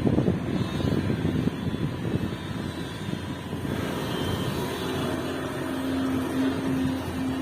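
Hidromek HMK 370 LC tracked excavator's diesel engine and hydraulics running as it works; a steady whine comes in about two-thirds of the way through.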